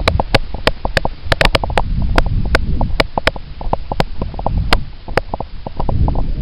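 Quick, irregular footsteps with gear knocking as a player moves on foot, close to the microphone, over a heavy low rumble of movement and wind on the mic.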